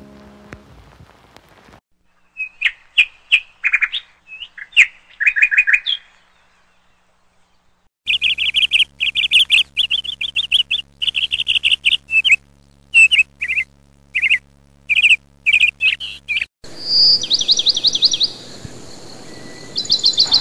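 Small birds chirping: clusters of quick, high chirps and short trills, with a gap of a couple of seconds about six seconds in and a steady hiss behind the trills from about sixteen seconds on.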